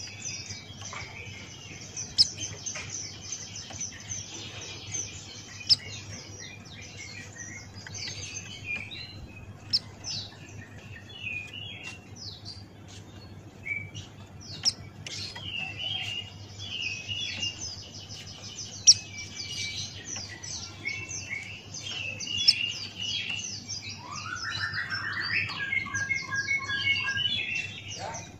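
Pleci buxtoni white-eye singing: rapid, high twittering chirps with a few sharp, loud notes scattered through. Near the end a lower, louder run of repeated notes comes in, over a steady low hum.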